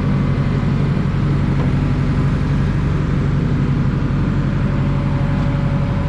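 A 2010 JCB 4CX backhoe loader's diesel engine running steadily at an even speed.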